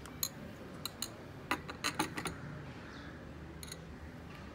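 Metal spoon and small glass bowls clinking as they are handled: a string of short, sharp clinks, several in quick succession around the middle and one more near the end.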